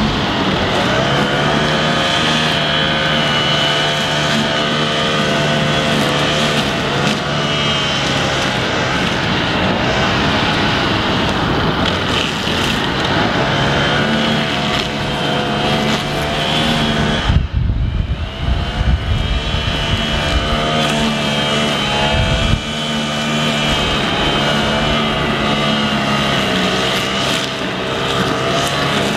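Petrol brushcutter engine running steadily at high revs, its pitch wavering slightly as the load changes while it cuts grass. About two-thirds of the way in there is a brief low rumble on the microphone.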